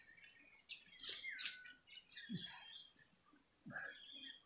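Steady high-pitched insect buzz, with scattered short bird chirps over it.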